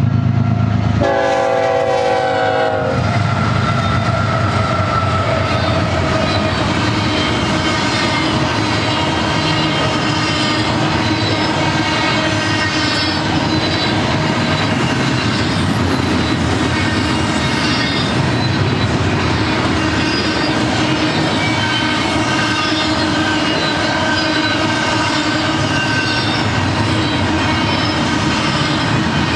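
BNSF double-stack intermodal train rolling past. About a second in the locomotives' low rumble gives way to a brief loud pitched tone. After that comes a steady clatter of well-car wheels over the rail, with thin ringing, squealing tones from the wheels.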